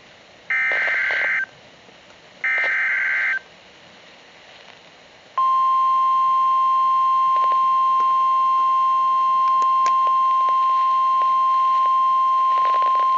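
Emergency Alert System header: two one-second bursts of SAME digital data tones, two seconds apart. About five seconds in, the NOAA Weather Radio single-pitch 1050 Hz warning alarm tone starts and holds steady, signalling that a new alert is about to be read.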